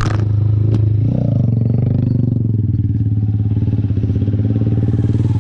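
Motorcycle engine idling steadily, with a single sharp click under a second in.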